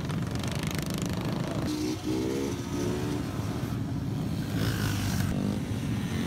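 Small mini-bike motorcycle engines running on a group ride, with one engine note standing out briefly about two seconds in.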